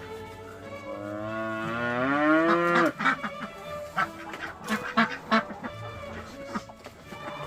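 A chicken gives one long drawn-out call that rises in pitch and cuts off suddenly about three seconds in. Irregular sharp taps of pecking follow.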